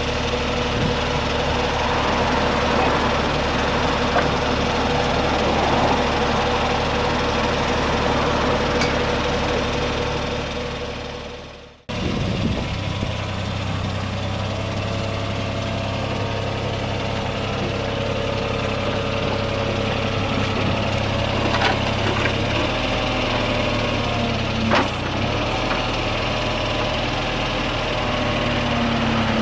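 Diesel engine of a Mitsubishi MM20CR mini excavator running steadily. The sound drops away about twelve seconds in and comes straight back at a slightly different pitch, with a few light clicks in the later part.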